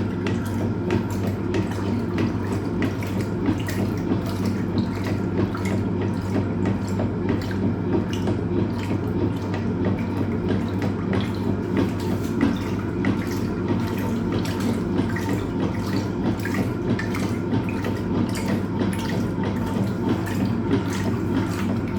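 Hoover Automatic 820 top-loading washing machine agitating a full load of clothes and water near the end of its wash cycle: steady churning and splashing from the one-piece agitator over the constant hum of the motor.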